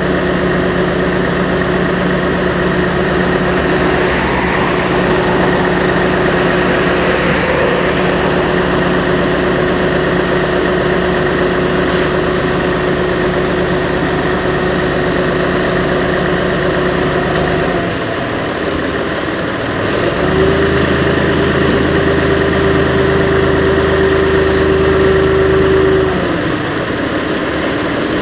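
Diesel engine of a Mercedes-Benz HLF 20 fire engine idling steadily. About 18 seconds in the steady note drops out, and from about 20 to 26 seconds a different steady tone runs before easing off.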